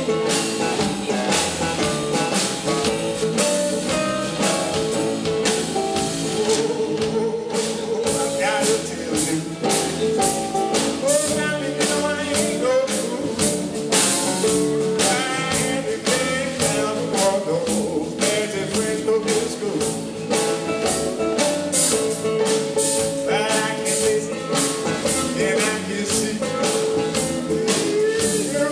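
Live blues band playing: a man sings over archtop guitar and electric bass, with a drum kit keeping a steady beat.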